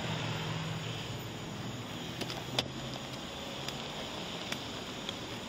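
A car engine idling steadily, with a faint hiss of street noise and one sharp click about two and a half seconds in.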